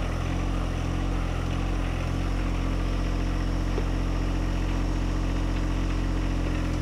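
John Deere 1025R compact tractor's three-cylinder diesel engine running steadily, driving the hydraulic pump.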